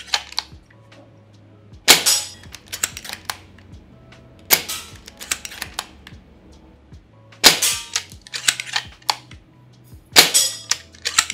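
Silverback TAC 41P spring-powered bolt-action airsoft sniper rifle fired in quick succession, a sharp shot about every two and a half to three seconds. Each shot is followed by a quick run of clicks as the bolt is cycled for the next shot.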